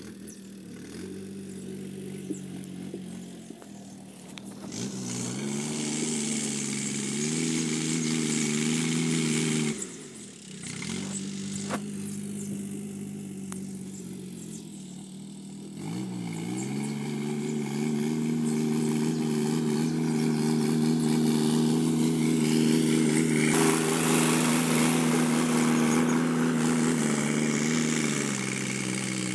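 Sonalika DI 50 RX Sikander diesel tractor engine running steadily while pulling a rotavator through the field. The engine note wavers up and down, drops away sharply about ten seconds in, and comes back louder about sixteen seconds in.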